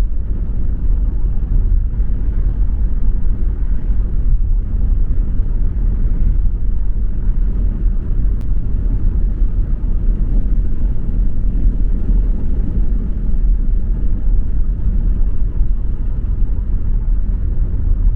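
Car driving at a steady speed: an even, low rumble of road and engine noise that does not change.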